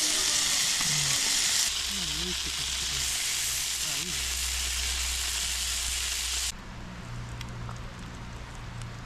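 Thin-sliced meat sizzling as it fries, a steady hiss that cuts off suddenly about two-thirds of the way through, leaving a quieter low hum.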